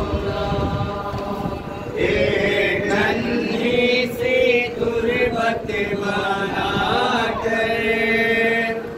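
Male voices chanting a nauha, a Shia mourning lament, in long drawn-out melodic phrases, with a new phrase taken up about two seconds in.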